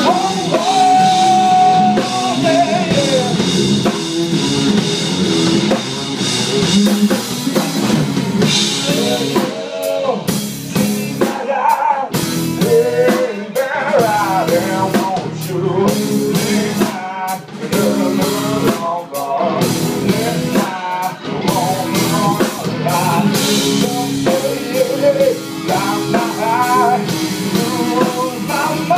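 A blues-rock trio playing live: electric guitar, electric bass and drum kit.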